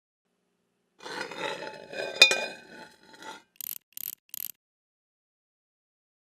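A metallic scrape leading to a sharp, ringing clank, then three short, crisp hissy ticks.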